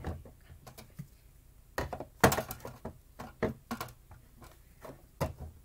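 Skincare bottles and containers being put away on a desk: a series of knocks and clatters, the loudest cluster about two seconds in and a few more single knocks later.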